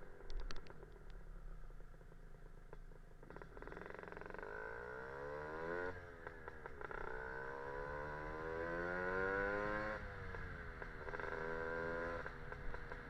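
Lambretta scooter's Casa Performance SSR265 two-stroke engine accelerating away through the gears: the pitch climbs, drops at a gear change about six seconds in, climbs again to its loudest and drops at a second change about ten seconds in. A few sharp clicks in the first second.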